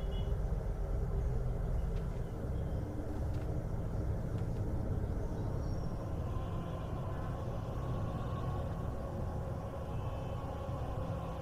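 Low, steady rumbling drone of a horror short's ambient soundtrack. Faint held tones swell in about halfway through.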